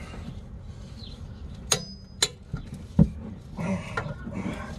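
Click-type torque wrench on a brake caliper bolt: two sharp metallic clicks about half a second apart, a sign that the 110 N·m setting has been reached. A dull knock follows, then a short rough grunt-like sound near the end.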